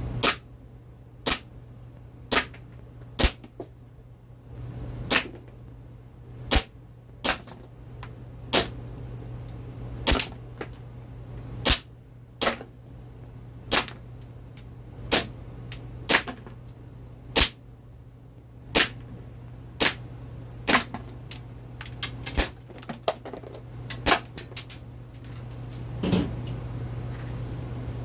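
ASG Steyr L9-A2 CO2 blowback airsoft pistol firing about twenty sharp shots, roughly one a second, with fainter clicks between some of them. A steady low hum runs underneath.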